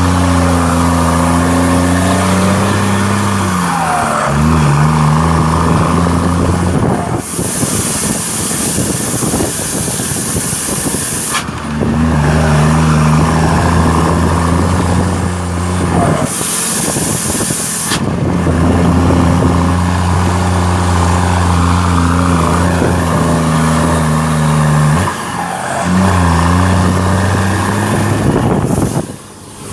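Ford Cargo 2428 truck's diesel engine rumbling with a steady low note that shifts pitch now and then. Twice it gives way to a loud hiss lasting a few seconds, about seven seconds in and again about sixteen seconds in.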